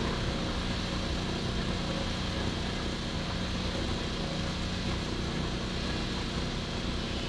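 A coach bus's engine idling steadily close by, a constant low hum.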